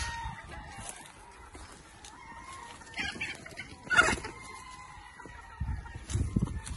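Gamefowl roosters crowing and clucking, with drawn-out calls and a sharp, loud sound about four seconds in. There are low bumps near the end.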